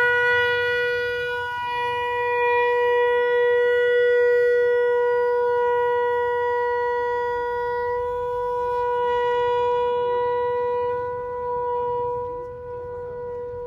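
Conch shell trumpet blown in one long, steady, unwavering note, weakening slightly near the end.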